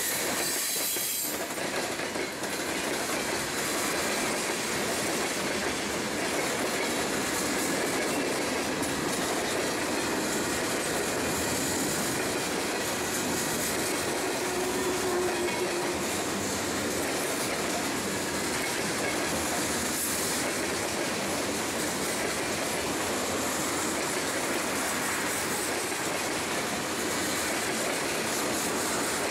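Freight cars of a long mixed freight train, covered hoppers and tank cars, rolling past close by: a steady rumble and roar of steel wheels on the rails, with wheel clatter and some high-pitched wheel squeal.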